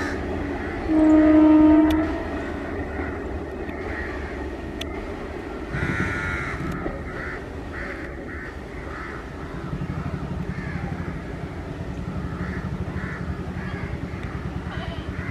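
Parcel train running away along the line with a low rumble, and one locomotive horn blast, about a second long, a second in. Crows caw repeatedly from midway, and a regular clatter of the wheels sets in for the last few seconds.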